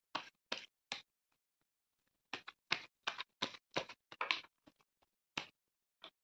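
A tarot deck being shuffled by hand: a run of crisp, irregular card slaps and flicks, with a pause of about a second near the start and a dense flurry in the middle.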